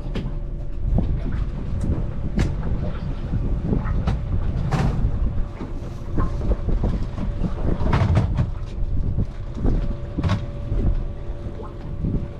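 Boat engine idling in neutral, with wind buffeting the microphone in a heavy low rumble. Several sharp knocks come through at irregular moments.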